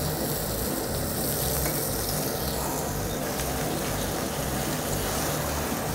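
Thick slabs of pork belly sizzling steadily on a tabletop barbecue grill.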